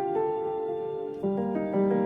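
Background music: gentle piano with sustained notes, changing chord about a second in.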